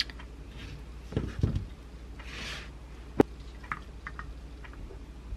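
Small handling sounds on a kitchen counter as food and a drink are set out: a couple of dull knocks about a second in, a short hiss, then one sharp click (the loudest sound), followed by a few faint ticks.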